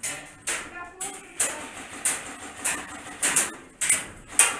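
Airsoft gunfire: a string of sharp, irregular snaps, about two a second.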